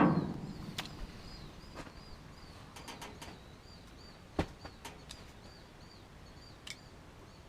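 A small bird chirping steadily, short high chirps about three a second, with a few light clicks and one sharper knock about four seconds in.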